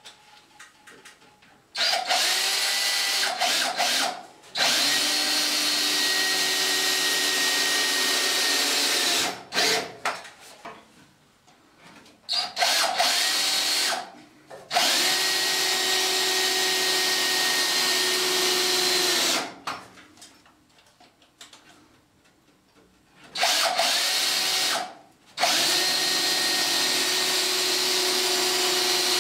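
Cordless drill driving screws through a timber noggin into the ceiling studs. The motor runs with a steady whirr in spells of two to five seconds, with short stops and a few brief stop-start pulses between screws.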